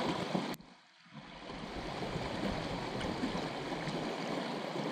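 Shallow rocky creek rushing over riffles and stones, a steady wash of water. About half a second in the sound drops out suddenly, then fades back up within a second or so.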